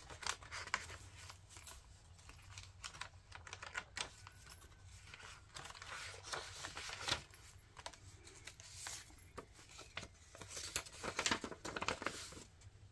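Thick hand-dyed paper pages of a handmade journal being turned and handled: irregular rustles and papery clicks, busiest near the end.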